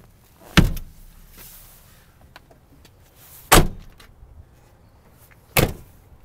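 Three loud slams, about half a second in, about three and a half seconds in and near the end: the doors of a 2006 Chevy Silverado 2500 HD extended cab being shut.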